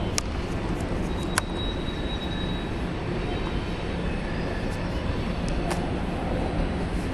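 Freight train rolling through a rail junction: a steady rumble of wheels on rail, broken by a few sharp clicks, with a faint high squeal about a second in.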